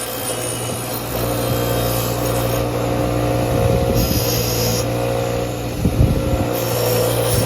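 Electric power tool running steadily under load, its motor giving a constant hum while it works material.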